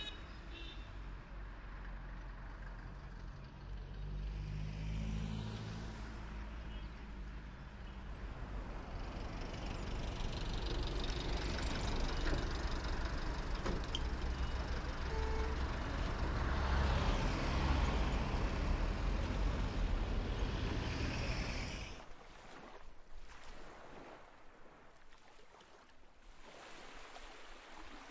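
Street traffic: a car's engine idling with a low hum, then vehicles running and passing, growing louder toward the middle. About 22 seconds in it cuts off abruptly to a much quieter background of wind and water at the shore.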